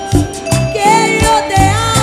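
Live gospel praise music: a woman sings a gliding melody into a microphone over a full band with bass, drums and percussion.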